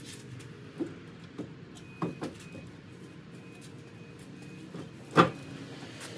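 Knocks and thumps as a heavy vehicle axle on a wooden pallet is shifted across a pickup truck's bed: a few light knocks in the first couple of seconds, then one loud thump about five seconds in.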